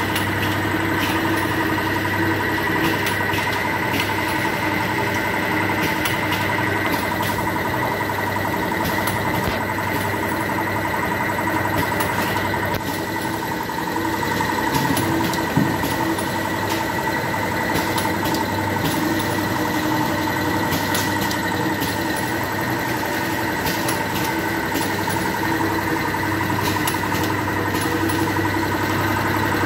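Automatic vertical tea pouch packing machine running continuously: a steady mechanical hum with a constant whine, and scattered sharp clicks throughout.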